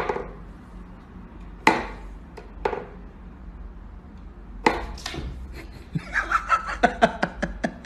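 Wooden knocks and clacks from a wooden whack-a-mole cat toy box as its plunger sticks are pushed to pop the toy up through the holes. A few single knocks come in the first half, then a quick run of clacks near the end.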